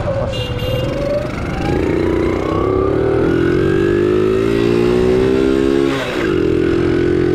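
Honda Super Cub 90's single-cylinder four-stroke engine accelerating under way, its pitch climbing steadily for about four seconds. It drops sharply about six seconds in, as at a gear change, then runs on steadily.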